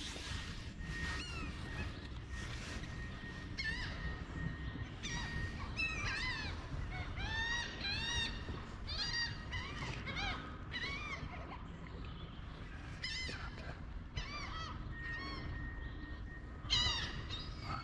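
Several birds calling over one another, with many short rising-and-falling cries repeating throughout, over a steady low rumble.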